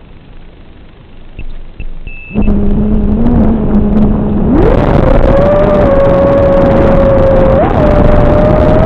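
FPV racing quadcopter's brushless motors (Xing 2206 2750 kV): a few short high beeps, then about two seconds in the motors spin up into a loud whine that climbs sharply in pitch about two seconds later and holds high under throttle.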